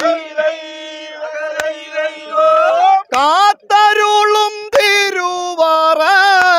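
Voices singing the Aranmula vanchipattu boat song in a chanting style, holding a long drawn-out note, then sliding into the next phrase after a short break. A few sharp clicks sound through the singing.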